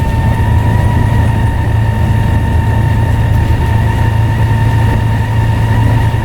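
Scania N94UD double-decker bus running under steady drive, its engine a deep drone with a steady, clear turbocharger whistle held at one pitch above it.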